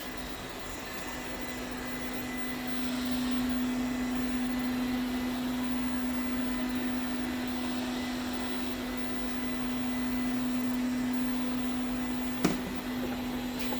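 Ziglint robot vacuum cleaner running, a steady hum with a strong low tone that grows louder a few seconds in. A single sharp knock near the end.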